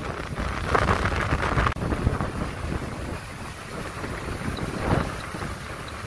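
Sea waves breaking and washing over basalt rocks, with wind buffeting the microphone. The surf swells loudest about a second in and again about five seconds in. The sound briefly cuts out about two seconds in, and a few faint high peeps sound near the end.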